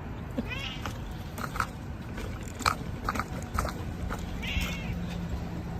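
A cat making two short high-pitched calls, one just after the start and one about four and a half seconds in, among small clicks and rustling.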